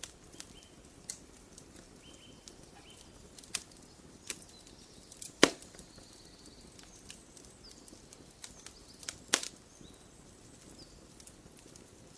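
Wood campfire crackling, with scattered sharp pops, the loudest about five and a half seconds in and another just after nine seconds. Faint short bird chirps sound in the background.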